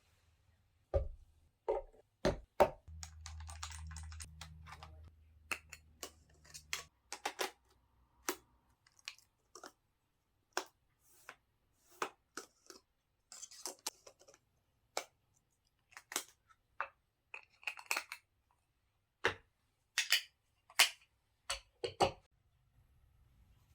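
A string of small, sharp clicks and taps at irregular intervals, some in quick clusters, with a low steady hum for a few seconds about three seconds in.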